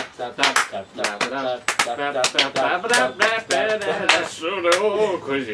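Intro jingle: quick, sharp percussive hits several times a second under a pitched melody that bends up and down.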